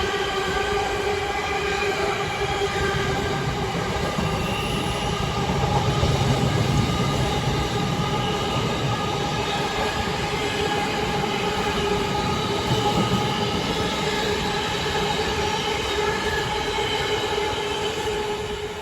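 Freight wagons passing at speed: a loud, steady rolling rumble of wheels on rail with a constant ringing whine of several tones over it, beginning to fade near the end as the train draws away. Several of the wagons have flat wheels, by the watchers' ear.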